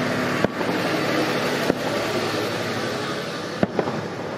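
Fireworks bursting: several sharp bangs, about half a second in, near the middle, and a quick pair near the end, over a steady wash of background noise.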